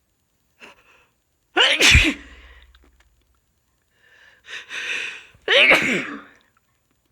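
A person sneezing twice, each a loud, sudden voiced burst. The sneezes come about four seconds apart, and the second follows a drawn-in breath.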